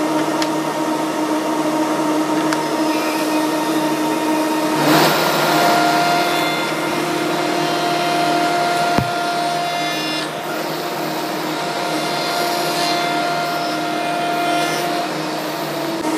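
10 hp spindle shaper running with a steady hum of several held tones. About five seconds in its cutter starts cutting a mahogany workpiece fed against a bearing collar, and the cutting noise and an added tone carry on until near the end, with one sharp knock partway through.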